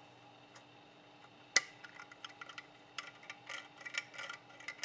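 Hard 3D-printed plastic parts being handled and fitted together: a sharp click about a second and a half in, then a run of small clicks and rattles.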